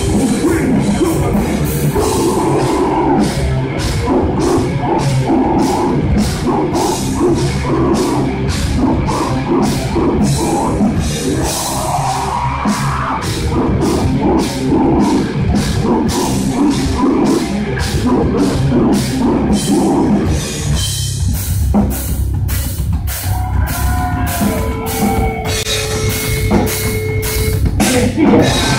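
Heavy metal band playing live: distorted electric guitars and bass over a drum kit beating a steady, fast rhythm. In the last third the music thins out for a few seconds, with a held, bending note.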